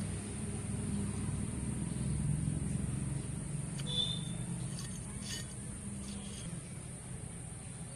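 A low, steady motor hum in the background that fades slightly toward the end, with a few light clicks and splashes around the middle as fingers dip into a steel bowl of water.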